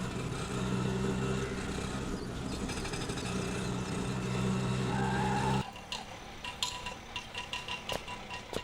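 Auto-rickshaw engine running steadily as the vehicle pulls over, then cutting off abruptly about five and a half seconds in. Faint clicks and light chiming follow.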